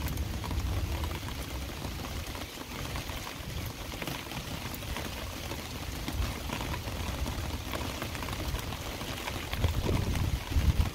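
Heavy rain falling steadily, a dense patter of drops, with a low rumble underneath that swells near the end.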